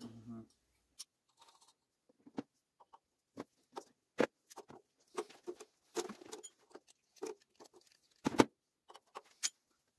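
Scattered clicks, knocks and rustles of hand tools and copper pipe being handled and set down on top of a boiler, with a sharp knock about eight seconds in the loudest.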